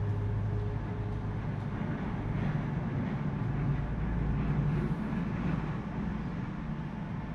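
Steady low rumble and hum inside a vehicle, with a faint higher tone that fades out about a second in.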